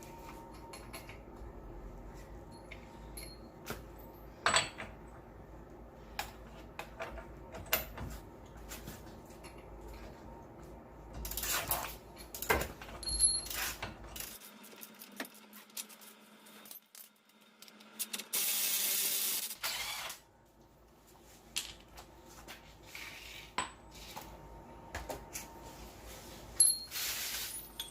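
Metal hand tools clinking and clanking against the hub and brake parts of a pickup's front wheel assembly: a string of sharp, irregular knocks and clinks. About two-thirds of the way in comes a steady hiss lasting under two seconds.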